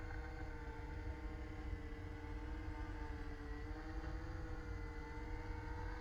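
KDS radio-controlled helicopter hovering: a steady motor-and-rotor whine that wavers slightly in pitch, over a constant low rumble.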